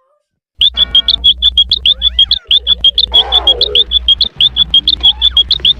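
Stock nature-ambience sound effect: a fast, regular train of short, high-pitched chirps, about eight a second, over a low hum, starting abruptly about half a second in. Faint gliding calls sound in the middle.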